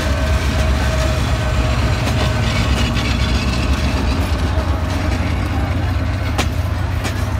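Passenger train rolling past close by, coaches going by behind the diesel locomotive: a steady low rumble of the train running on the rails, with a sharp clank about six seconds in.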